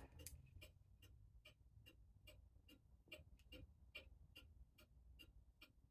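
A mechanical clock ticking faintly with a quick, even beat.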